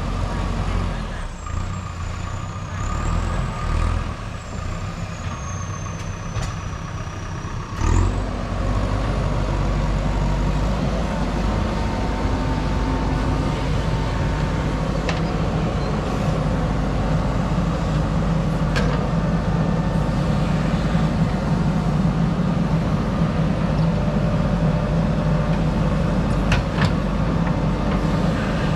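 JCB backhoe loader's diesel engine running as it works soil, with a faint high whine over it at first. About eight seconds in there is a sharp clunk, and the engine then runs louder, with a few sharp clicks later.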